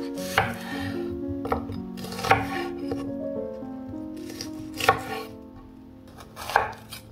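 Five sharp knocks at uneven intervals over background music with held notes, the music fading toward the end.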